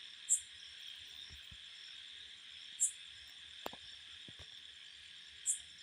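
Steady insect chirring in the background, with short high chirps about every two and a half seconds. A single sharp click comes about two-thirds of the way through.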